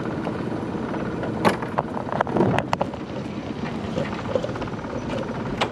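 Small boat motor running steadily under the trolling, with a few sharp clicks and rattles from the lure and hooks being handled about one and a half to three seconds in.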